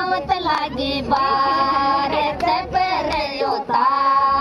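Women singing a Rajasthani Mayra geet, the folk song of the maternal uncle's gift-giving, in high voices that hold long steady notes twice over.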